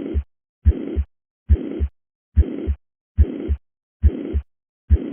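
Recorded heart sounds through a stethoscope diaphragm at the apex: a regular heartbeat at about 70 beats a minute, each first heart sound followed by a uniform, high-pitched murmur filling all of systole up to the second heart sound. This holosystolic murmur is most likely from mitral regurgitation.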